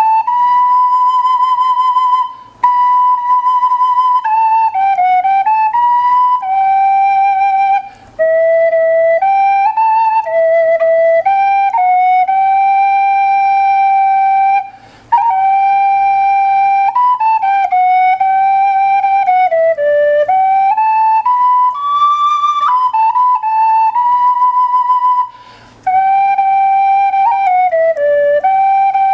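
Handmade wooden svirel, a Russian end-blown fipple flute pitched in D major, played solo. It plays a slow melody of long held notes with vibrato and sliding bends between notes, broken four times by short pauses for breath.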